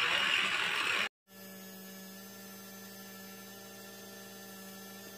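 About a second of rough, noisy sound cuts off abruptly. After a brief silence a steady hum takes over, with a strong low tone and a stack of fainter even tones above it.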